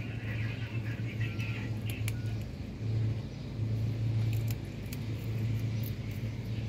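A cat eating from a plastic bag: scattered small clicks and crinkles, over a steady low hum.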